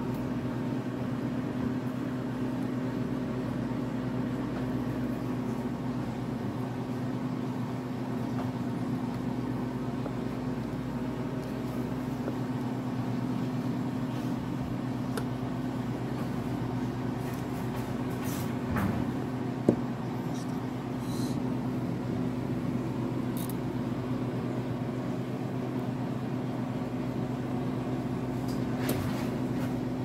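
A steady machine hum from a running motor or appliance, at an even level throughout. A few light clicks and taps come from a wire soap cutter being handled, the sharpest one a little after two-thirds of the way in.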